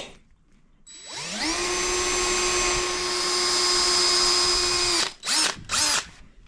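Power drill boring a pilot hole through the wooden workbench top for a vise mounting bolt. After a short knock at the start, the motor winds up about a second in, runs steadily for about four seconds, then stops, with two short bursts after it.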